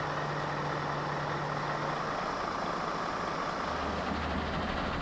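Heavy truck diesel engine idling, giving way about two seconds in to the deeper, steady running of a mobile crushing and screening plant.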